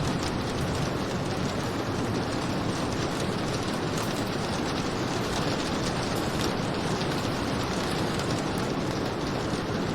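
Rain falling steadily, an even dense hiss with a few faint drop ticks.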